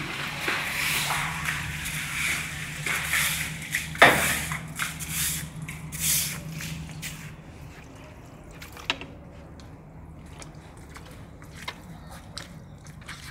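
Stiff push broom scrubbing and pushing water across wet floor tiles, with water sloshing under the bristles; a sharp knock about four seconds in, and the strokes thin out to a few scattered clicks after about seven seconds.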